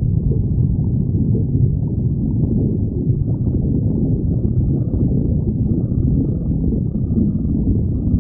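A person's hungry stomach growling: a continuous low rumble that keeps going without a pause.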